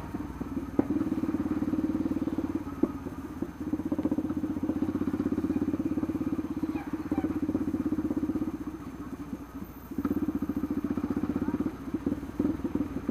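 Yamaha Lander 250's single-cylinder engine running with a fast, even pulse while riding in traffic; the throttle eases off around nine seconds in and the engine note picks back up about a second later.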